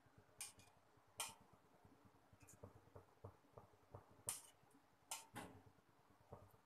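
Faint, scattered clicks and light taps of a ladle against an aluminium pot as cooking oil is ladled in, a handful of them sharper than the rest.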